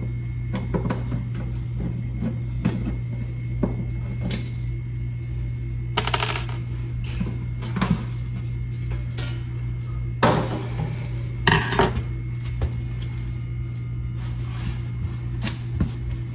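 Steady low hum from the back of a Samsung refrigerator while the rear cover is being handled and pulled off, with scattered knocks and clicks and a few louder scraping, rustling sounds.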